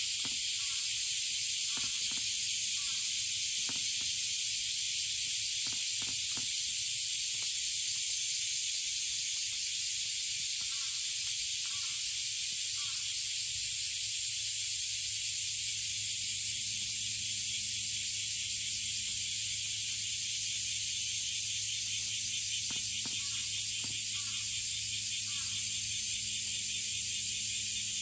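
Steady, dense chorus of summer cicadas, a shrill hiss with a fine pulsing texture, with faint scattered clicks underneath.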